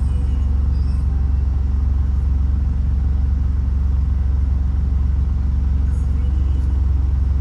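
Suzuki Celerio's engine idling steadily, heard from inside the cabin as a constant low rumble.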